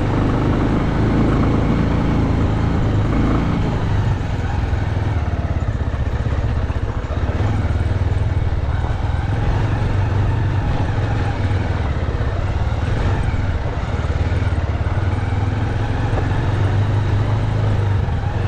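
Motorcycle engine running steadily while riding, a constant low hum under a rush of road and wind noise.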